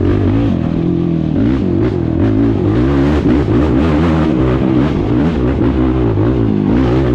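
Sport quad (ATV) engine at race pace, its pitch rising and falling again and again as the throttle is rolled on and off, with frequent knocks and rattles from the machine over rough ground.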